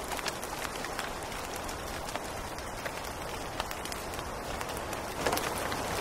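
Steady rain falling, with many single drops ticking close by on leaves and stone; it grows a little louder about five seconds in.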